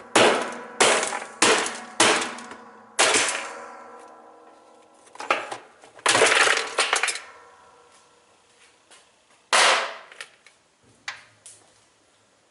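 Heavy blows smashing a washing machine washplate that is fused onto the transmission shaft. Five sharp strikes come in the first three seconds, each followed by metallic ringing. A longer rattling crash follows about six seconds in, then two more single blows.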